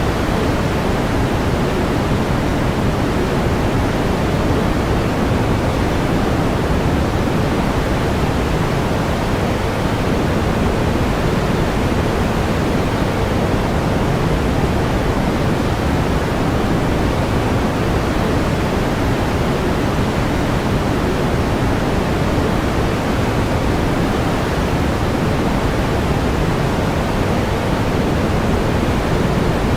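Steady pink noise: an even, unchanging hiss weighted toward the low end, with no events in it.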